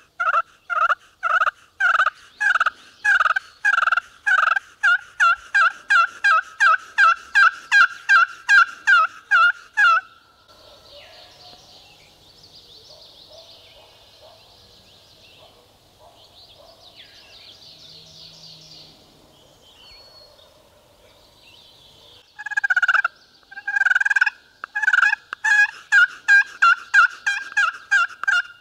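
Turkey yelping in long runs of loud, evenly spaced yelps, about three a second. The first run lasts about ten seconds and quickens toward its end. After a quiet stretch of about twelve seconds, a second run starts.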